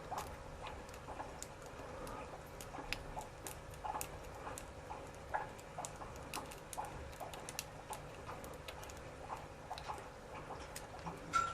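Faint, irregular metal clicks and scratches of a lock pick and tension wrench working the pin stacks of a six-pin thumb-turn lock cylinder during single pin picking, with a slightly louder click near the end.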